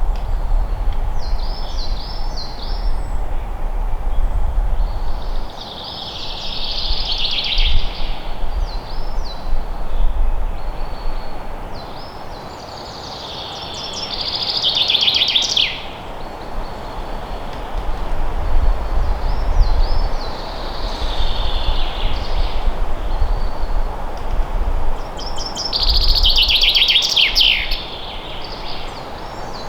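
Songbirds singing in woodland: a trilled song phrase about two seconds long, dropping in pitch at its end, repeats about every seven seconds, with shorter chirps between. Under the birds runs a steady hiss with an uneven low rumble.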